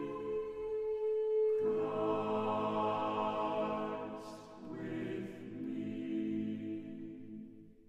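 Background music of slow, held chords that change twice and fade out near the end.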